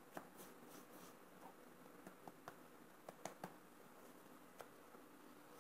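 Faint scattered taps and clicks of floured hands pinching a filled round of bread dough closed on a stone worktop, over quiet room hiss.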